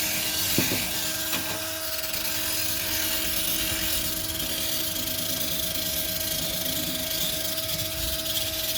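Electric drill spinning a brush attachment, scrubbing dried bird droppings off a street light, a steady motor whine over scratchy brushing.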